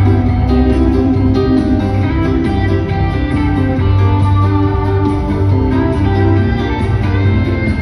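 Live rock band playing a guitar-led instrumental jam, with no singing, heard from the audience in an arena.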